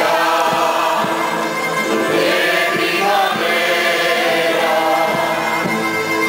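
Canarian parranda folk ensemble playing and singing: a chorus of voices singing together over strummed and plucked guitars, smaller plucked string instruments and a double bass.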